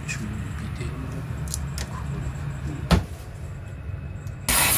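Kitchen sounds over a low steady hum: a few light clicks, a single knock about three seconds in like a cupboard or door, then a tap turned on near the end, water rushing out.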